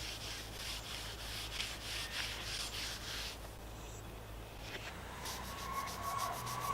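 Quick, even strokes of abrasive scraping on a hard surface, typical of sanding or wire-brushing in metalwork. They run for about three seconds, pause, and come back fainter; a steady high tone enters near the end.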